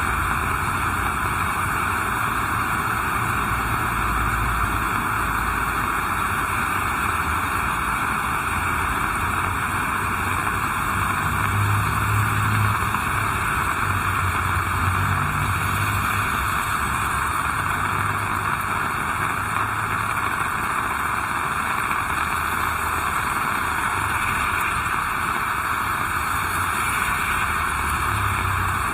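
Heavy rain falling in a steady, dense hiss, with a low rumble that swells and fades now and then.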